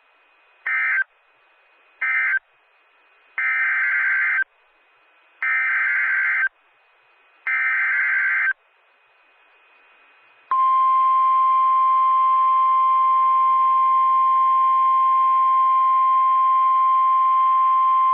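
Emergency Alert System digital data bursts: two short end-of-message bursts, then three buzzing, roughly one-second header bursts about a second apart. About ten seconds in comes a steady single-pitch NOAA Weather Radio warning alarm tone, announcing a new warning.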